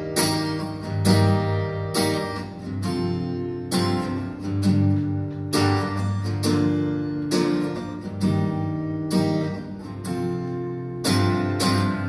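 Acoustic guitar strummed in slow chords, about one a second, each left to ring, with no singing: the instrumental close of a song.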